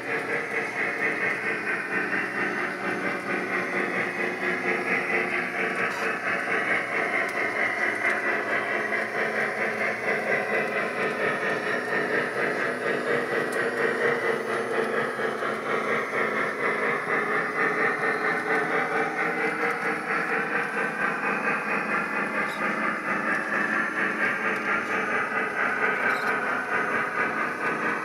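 O gauge model trains running on the layout's track, a steady mechanical running noise that holds throughout.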